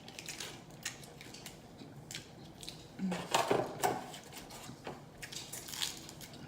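Close-miked eating of a fried chicken and fries meal: chewing and mouth smacking with small clicks, and a denser run of crunchy chewing about three seconds in.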